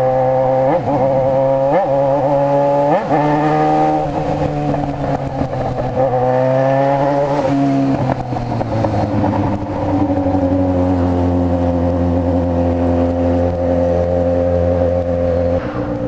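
Yamaha XJ6's 600 cc inline four-cylinder engine running at steady revs, with short throttle blips in the first few seconds and a rise in revs about six seconds in, then settling to a lower, even note that drops near the end.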